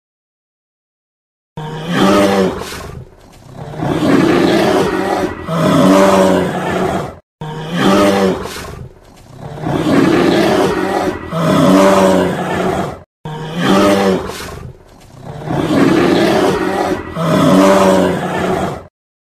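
Big cat roaring and growling: the same sound clip of about five and a half seconds played three times in a row, starting about a second and a half in, with short gaps between the repeats.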